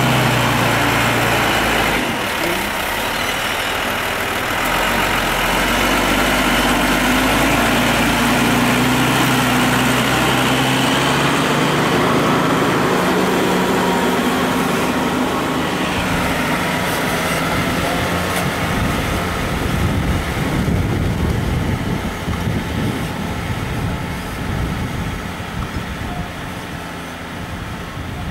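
New Holland TM120 tractor's diesel engine running steadily under load, pulling a Kuhn MultiMaster reversible plough through the soil. It is loud at first while close by, then fades over the last several seconds as the tractor moves away.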